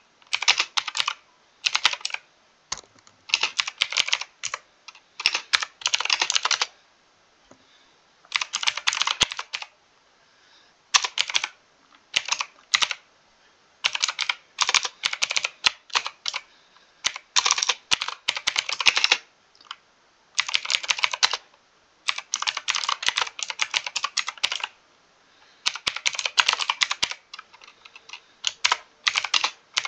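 Mechanical keyboard being typed on: quick runs of clacking keystrokes in bursts of a second or two, broken by short pauses.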